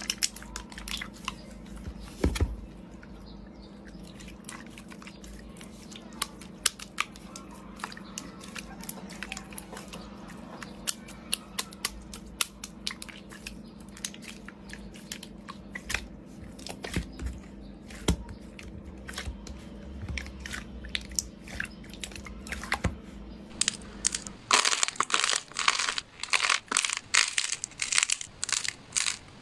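Slime being squished and stretched by hand, with scattered small clicks and pops over a faint steady hum. About 24 seconds in it switches to much louder, dense crackling and popping as the slime is pressed.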